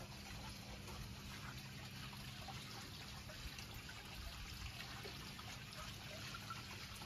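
Koi pond water trickling faintly, with a thin steady hum underneath.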